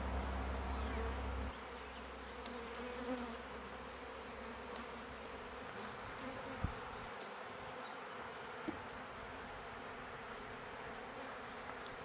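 Honey bees buzzing in a steady hum around open hives. A low rumble cuts off about a second and a half in, and two sharp clicks come about six and a half and eight and a half seconds in.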